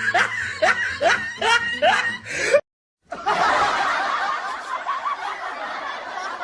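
Laughter sound effects: one person laughing in quick repeated bursts, about three a second, then a brief cut to silence, followed by a group of people laughing together.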